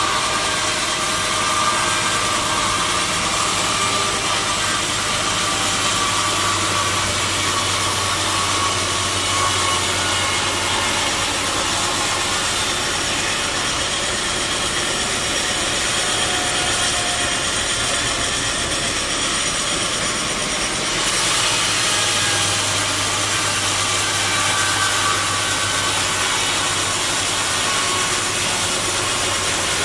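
Sawmill band saw running and cutting through wood: a loud, steady mechanical noise with a low hum and a whine. The sound shifts about two-thirds of the way through.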